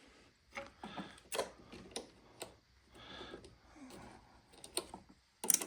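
Scattered light clicks and small knocks of hand work on car parts, with a few sharper clicks near the end.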